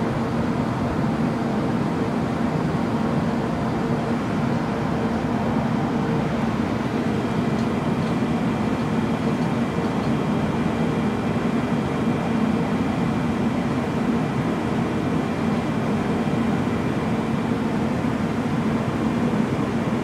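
Shipboard machinery of the research vessel R/V Knorr running: a steady hum with several held tones over an even noise that does not change.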